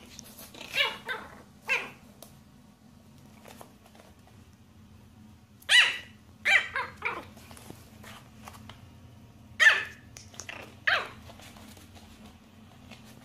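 Small fluffy puppy yapping: short, high-pitched barks in groups, about four in the first two seconds, a few more a little past the middle, and two near the end.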